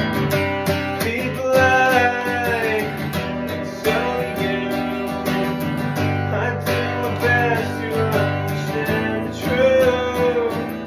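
Acoustic guitar strummed in a steady rhythm, with a melody line that bends and glides in pitch in several short phrases over it.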